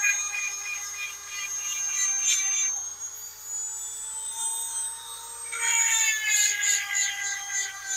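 Small electric chainsaw sharpener's motor spinning its grinding bit against chainsaw chain teeth, a high-pitched steady whine. About three seconds in its pitch creeps slowly upward and the upper tones thin out; near six seconds the fuller whine returns with a rapid pulsing in the high end.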